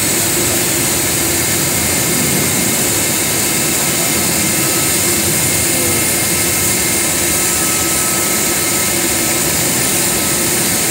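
Boeing 737 Business Jet's CFM56 turbofan engines running at ground idle: a steady, loud jet noise with a strong high hiss and a few held whining tones, unchanging in pitch.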